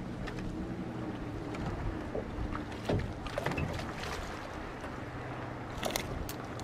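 Wind and lake water around a small aluminum fishing boat under a steady low hum while a fish is reeled in. About six seconds in, a quick cluster of sharp clicks and knocks comes as the fish is swung out of the water into the boat.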